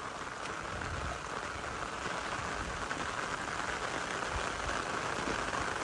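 Heavy rain falling steadily: a continuous, even hiss.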